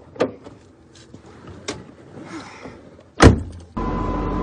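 Scattered faint clicks, then a loud thump a little over three seconds in. Just after it a steady hum sets in abruptly, the sound of a car running, heard from inside the cabin.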